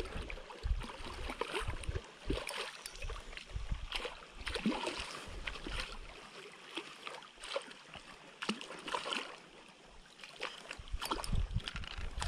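Hooked tilapia splashing and thrashing at the water's surface as it is reeled in on a spinning reel, in irregular bursts of splashing. Wind bumps on the microphone near the start and near the end.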